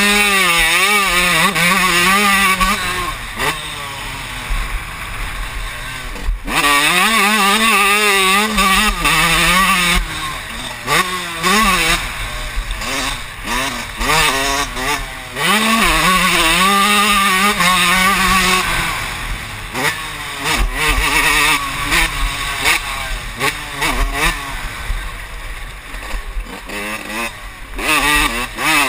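Motocross bike engine revving hard under way, its pitch climbing and falling as the throttle is worked, with several spells of backing off where it drops quieter before opening up again.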